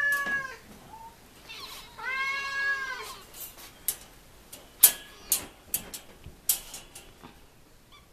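Siamese kittens meowing: one long meow ends just after the start, and another comes about two seconds in. After that comes a run of sharp clicks and knocks, the loudest of them about five seconds in.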